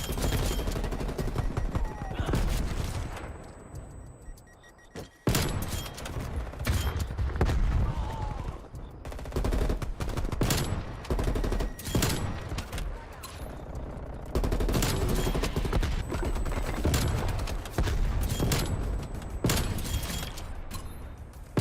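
Video game gunfire: rapid automatic-weapon fire in bursts from a first-person shooter match, with a short lull about four seconds in before the firing starts again abruptly.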